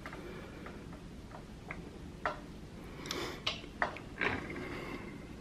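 Faint, irregular small clicks and ticks of fingers handling a new bowstring cable at a compound bow's cam, twisting the cable and seating it on the cam peg.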